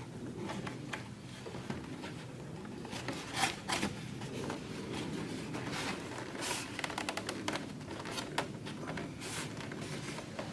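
Handling noise of foam model-airplane wing parts being pushed together and test-fitted: irregular light rubbing, scraping and small clicks, a little louder about three and a half seconds in and again near the end.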